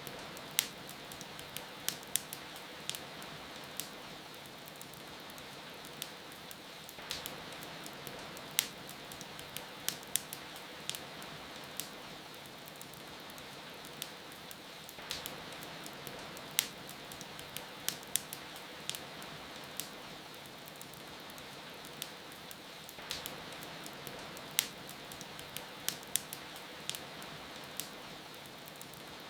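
Steady rain patter with a wood fire crackling over it: irregular sharp pops and snaps, several a second, above the even hiss of the rain.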